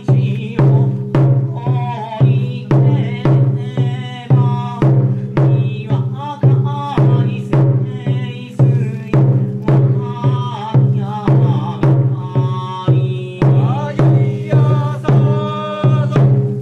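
A drum struck in a steady beat about twice a second, with chanted singing over it: Japanese festival music.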